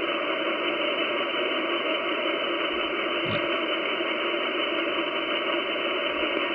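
Steady receiver hiss and static from an Icom IC-756PRO HF transceiver in upper-sideband mode on the 10-metre band, tuned slowly across a stretch with no clear signal. The hiss is cut off sharply above about 3 kHz by the receiver's sideband filter.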